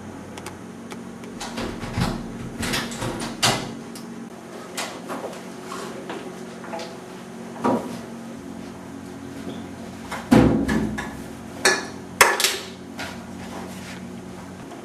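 Scattered knocks, clicks and thumps of a door and of handling in a small room. The loudest are a heavier thump about ten seconds in and a quick pair of sharp clacks about two seconds later.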